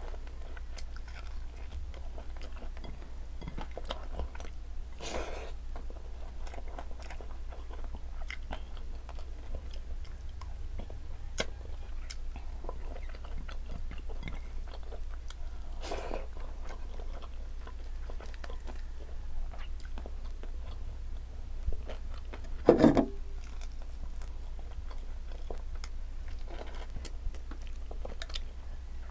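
A person chewing and biting fried tilapia and rice close to the microphone, with small crunches and wet mouth clicks. A few brief louder mouth sounds stand out, the loudest about 23 seconds in.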